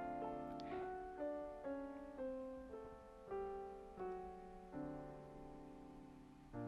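Quiet background music: a slow piano melody of single notes, each struck and fading away.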